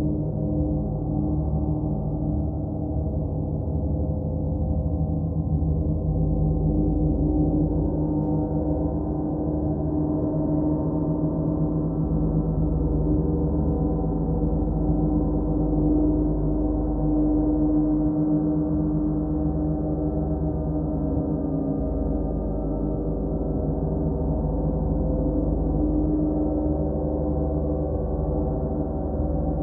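Large planet gongs played continuously, a dense drone of many overlapping tones that swells and ebbs gently, with no single sharp strike standing out.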